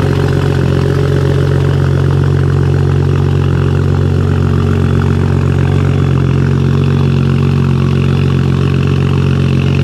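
A 2021 Toyota Supra's B58 turbocharged inline-six idles steadily through an RK titanium single-exit exhaust, giving an even, unchanging low drone with no revving.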